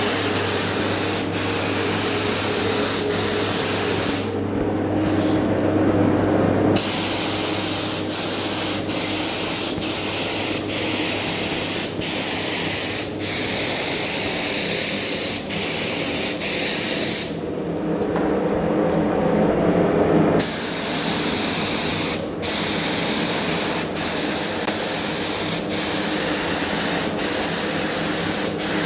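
Gravity-feed spray gun hissing as it sprays polyester primer in a series of passes. The hiss cuts off briefly between strokes, and stops for two to three seconds about four seconds in and again about seventeen seconds in.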